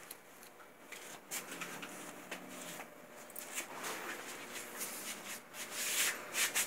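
Irregular rustling and scuffing in short bursts, loudest near the end.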